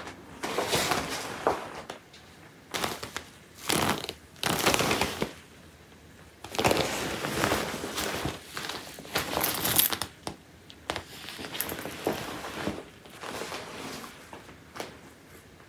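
Black leather jacket rustling and crinkling as it is moved and handled, in a string of short bursts with quiet gaps between them.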